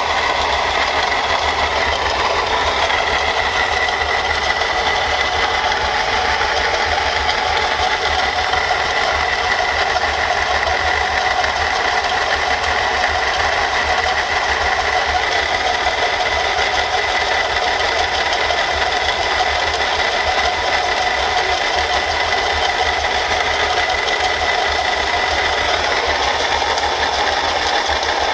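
Mercedes-Benz C240 V6 engine running with a steady rattle and a constant high whine from the failing water pump: its bearing has broken, letting the pump wobble.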